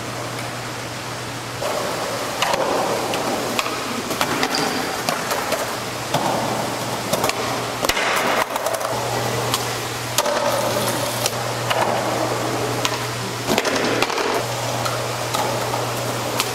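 Skateboard wheels rolling over smooth hard floors, with several sharp clacks of the board popping and landing, over a steady low hum.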